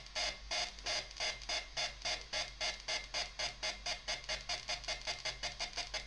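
Homemade Muscarin analog noise synthesizer putting out an even stream of hissy, buzzy pulses chopped by its LFO. The pulses gradually speed up from about three and a half to about five a second.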